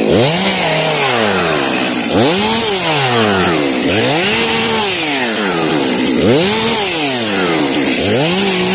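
Stihl MS400C two-stroke chainsaw revved hard again and again, climbing to full speed, holding briefly and dropping back, six times about every 1.7 s. The engine is freshly rebuilt, on its first run, with the rings not yet seated.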